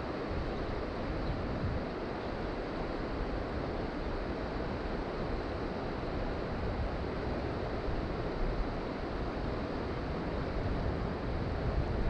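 Steady rushing of a swollen mountain creek running high and fast.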